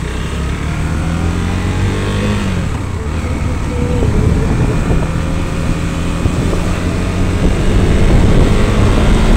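Motorcycle engine accelerating from low speed, its pitch rising, falling back at a gear change about two and a half seconds in, then climbing again. Wind rushes over the handlebar-mounted phone, and the engine and wind grow louder as the bike gathers speed.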